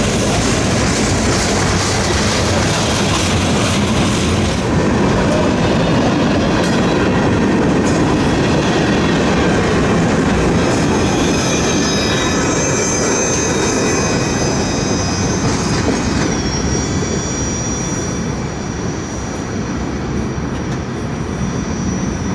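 Freight train of covered hopper cars rolling past, with steady wheel-on-rail rumble and clatter. From about halfway through a thin, high wheel squeal joins in, dips once and then holds a single pitch to the end.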